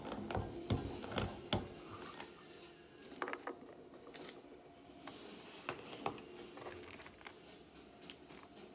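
Lyman reloading press being worked by hand, with .38 Special brass cases set in and taken out: a series of sharp metallic clicks and knocks, thickest in the first second and a half and again about three and six seconds in.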